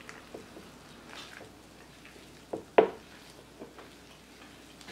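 A spatula folding a thick, creamy crab-dip mixture in a bowl: soft, wet squishing and scraping with a few light taps, the sharpest a little past halfway.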